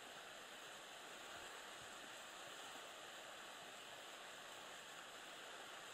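Near silence: a faint, steady hiss of background noise, with nothing standing out.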